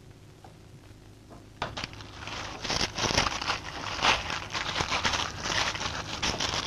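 A faint low hum, then about a second and a half in a dense crackling clatter of many small knocks and scrapes starts and grows louder: picks and shovels working loose heaps of broken bituminous shale.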